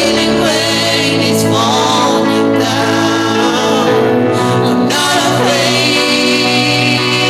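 Gospel worship song: singing over held, sustained instrumental chords.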